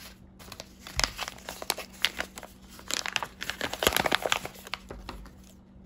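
Manila paper envelope crinkling and rustling as it is handled, a quick run of irregular crackles that starts about a second in and is busiest in the middle.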